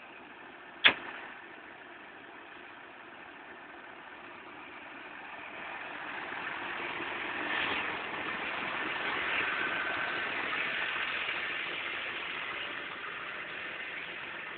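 New Holland T7.200 tractor's diesel engine running steadily, growing louder about halfway through and easing off near the end. A single sharp click about a second in.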